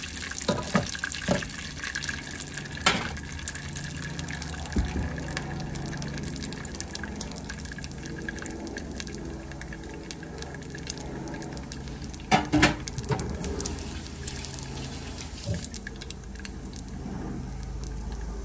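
Leftover frying oil sizzling steadily in a deep pot. A few sharp utensil clinks sound over it, the loudest a quick pair about two-thirds of the way through.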